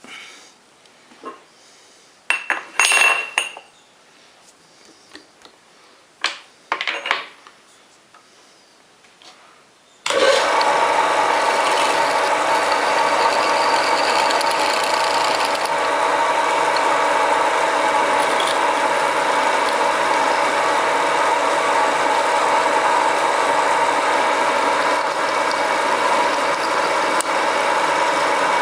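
A few short knocks and clatters of metal parts being handled, then about a third of the way in the homemade mini lathe's 750 W single-phase motor comes on suddenly and runs steadily, a loud machine whine with several steady tones.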